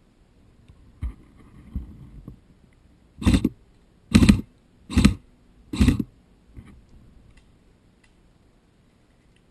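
Four loud, evenly spaced scuffing steps a little under a second apart, with fainter scuffs before and after: footsteps on dry ground.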